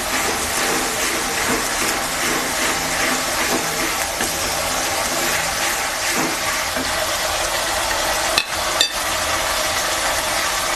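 Onion paste frying in hot oil in a pan, a steady sizzle. Two sharp knocks come close together about eight and a half seconds in.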